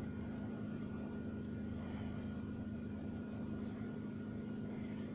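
A steady, even low hum, a continuous machine-like drone with no change or break.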